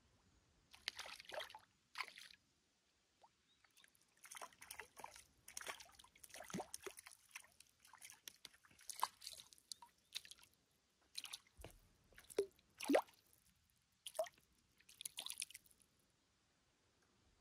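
A small hooked fish splashing and flapping at the water surface as it is played on a float rod: an irregular run of short splashes and plops, stopping about a second before the end.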